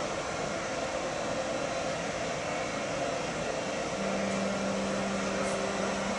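Class 1116 Taurus electric locomotive running its cooling fans, a steady whir. A low steady hum joins in about four seconds in.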